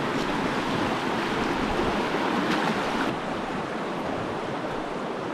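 Steady rush of creek water running over a rocky rapid, a little quieter from about three seconds in.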